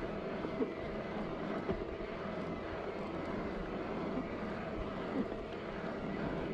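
Steady rush of wind and tyre noise from riding an electric fat bike along a concrete road, with a faint motor hum and a few small knocks from bumps.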